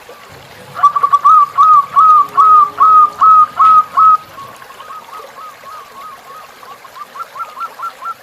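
A bird whistling a rapid series of short rising-and-falling notes, loud from about a second in until about four seconds, then softer and quickening toward the end, over a faint trickle of running water.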